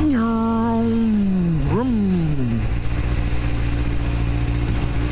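Suzuki GSX-R inline-four sport-bike engine heard while riding: the revs fall off, pick up in a quick blip a little under two seconds in, fall again, then hold steady, over a steady low rumble.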